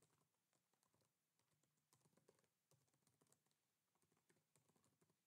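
Very faint typing on a computer keyboard: irregular, quick keystroke clicks barely above silence.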